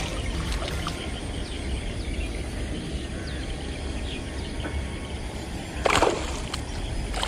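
A small hooked barramundi thrashing and splashing once at the water's surface about six seconds in, over steady outdoor background noise.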